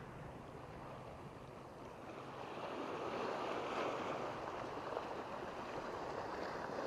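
Surf breaking and washing up a sand beach, swelling louder about two seconds in.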